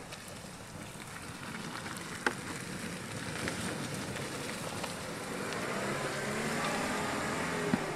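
Land Rover Defender 90 driving slowly past on a muddy woodland track, its engine and tyres getting louder as it comes close, with a sharp crack about two seconds in.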